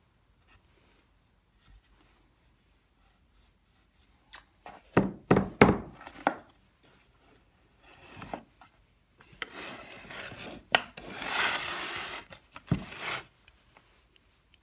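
Hand carving with a wooden-handled gouge struck by a red mallet: a quick cluster of sharp mallet knocks about five seconds in, then a few single knocks and a longer scraping cut as the gouge pares chips from the board.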